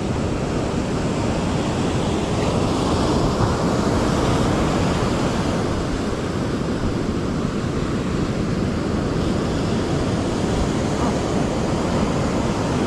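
Surf breaking and washing up a sandy beach, a steady rush, with wind rumbling on the microphone.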